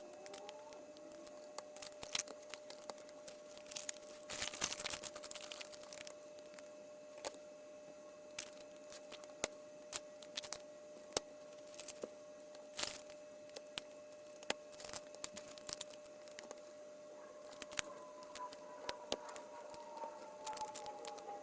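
Plastic bags of LEGO pieces being torn open and crinkled, with scattered sharp clicks of small plastic bricks knocking together; the heaviest tearing comes about four to five seconds in. A faint steady hum runs underneath.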